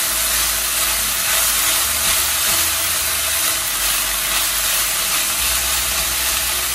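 Chopped green bell peppers and onions sizzling steadily in oil in an open nonstick frying pan over a medium-high gas flame, stirred with a silicone spatula.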